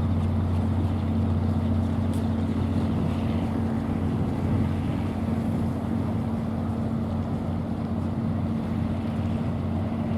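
Steady low drone of a cement carrier's engine running as the ship gets under way, holding one low hum, with wind rumbling on the microphone.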